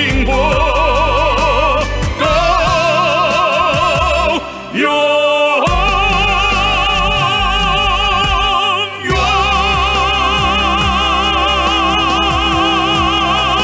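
Operatic baritone and a female singer holding long notes with wide vibrato over orchestral accompaniment, singing the closing line of a Chinese song. The phrases break briefly about four and a half seconds in, and a final long note is held from about nine seconds in.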